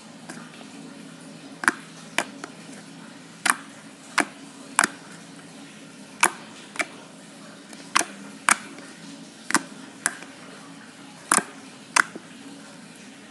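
Sharp pops and clicks from soft white glue slime as fingers press and poke into it, squeezing out trapped air: over a dozen at uneven spacing, about one or two a second, over a faint steady low hum.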